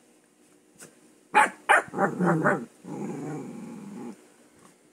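Husky puppy play-growling while play-fighting with a hand: two sharp barks about a second and a half in, a quick run of short growly calls, then a low growl lasting about a second.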